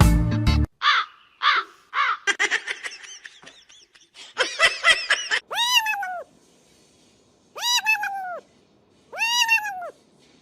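An animal calling: first a run of short, quick calls that rise and fall, then three longer calls about two seconds apart, each rising and falling in pitch.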